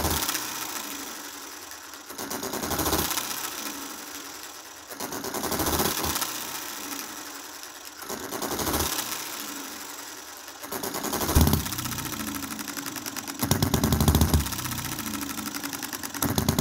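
Model hit-and-miss engine running: every two to three seconds it fires a short burst of power strokes, then coasts on its flywheels with fast ticking from the valve gear, the bursts getting stronger in the second half. Its valves have just been lapped to restore compression, and it now shows more power on the first firing after each miss.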